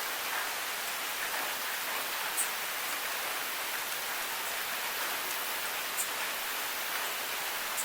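Steady rain hissing evenly, with a few louder, sharper drop ticks standing out.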